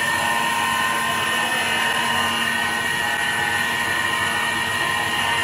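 CNC wood turning lathe cutting a spinning wooden post, with the spindle turning at 517 rpm: a steady mechanical whine of several constant high tones over the hiss of the cutter shaving wood.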